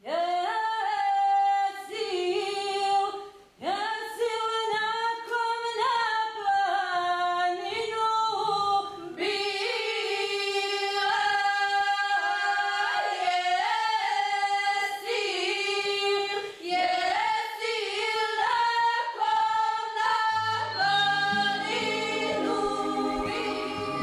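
Background music: a choir singing a cappella, voices holding long sustained notes. Low held notes join in near the end.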